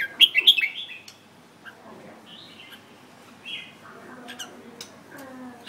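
Caged red-whiskered bulbul calling: a quick run of loud, sharp chirps in the first half second, then softer scattered notes, with a few light clicks in between.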